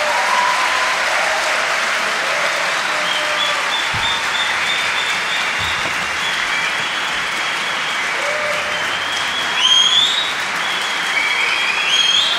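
Large audience applauding, with high whistles rising over the clapping about ten seconds in and again near the end.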